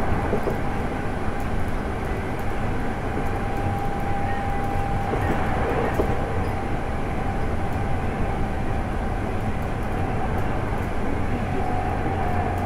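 Inside a Hankyu 8300 series electric train (Toyo GTO VVVF inverter) running at speed: steady rumble of wheels on rail with a continuous whine from the drive, which dips slightly in pitch near the end as the train nears its next stop.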